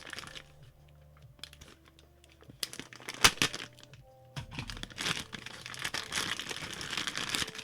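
Plastic packaging rustling and crinkling as monitor-arm parts are unwrapped, with a sharp click about three seconds in, the crinkling thickening from about halfway on.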